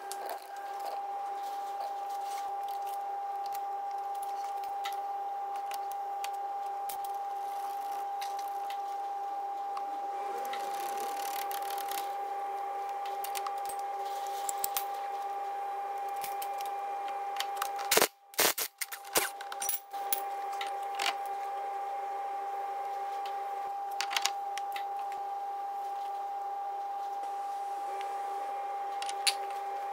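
Small metallic clicks and knocks of brake pads and a caliper being handled and fitted onto a front brake disc, over a steady mid-pitched hum; a short cluster of louder knocks comes about two-thirds of the way through.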